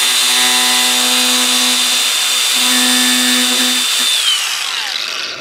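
Angle grinder with a cutoff wheel running at full speed with a high steady whine while cutting off the corner of a plastic third brake light housing. About four seconds in it is let off and winds down in pitch until it stops.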